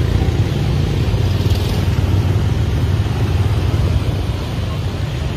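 Motorbike traffic: engines running close by in a steady, deep rumble with street noise over it.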